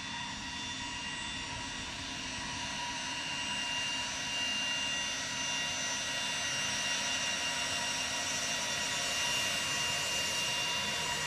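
Hawker 900XP business jet taxiing on its two Honeywell TFE731 turbofans at low thrust: a steady whine with several high tones over a rushing hiss. It grows a little louder about four seconds in as the jet comes closer.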